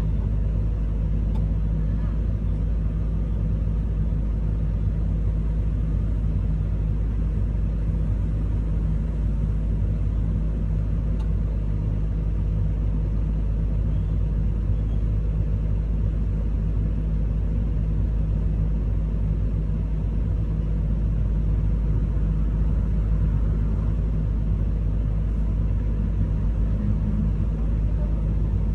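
Komatsu 210 excavator's diesel engine idling, heard from inside the operator's cab as a steady low hum with no change in speed.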